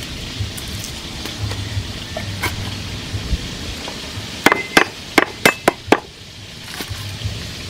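A steel cleaver chopping a lemongrass stalk on a round wooden chopping block. About six sharp strikes come in quick succession over a little more than a second, about halfway through, some with a brief metallic ring.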